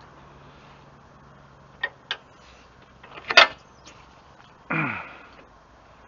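Latch clicks and a clunk as the rear engine-access door of a Kubota SSV65 skid steer, with the fuel tank built into it, is unlatched and swung open: two quick clicks, then a louder clunk, then a short sound that falls in pitch near the end.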